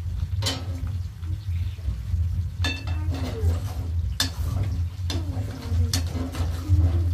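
Utensil stirring food frying in a metal pot on a gas stove, scraping and knocking against the pot with about five sharp clinks, some ringing briefly. A steady low hum runs underneath.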